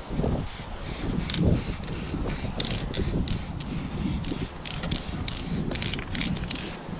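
Aerosol spray paint can sprayed in many quick short bursts, a couple of hiss bursts a second, over a low handling rumble.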